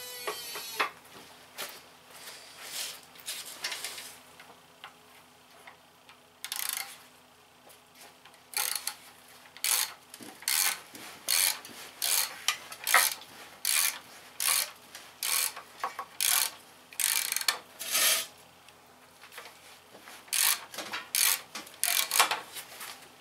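Hand ratchet wrench clicking as it turns a bolt on a garden tractor's rear differential housing, in quick repeated strokes at about two a second. The strokes pause briefly and then start again near the end.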